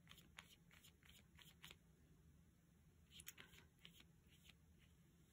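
Near silence with faint, irregular soft scratches of a paintbrush stroking paint onto paper.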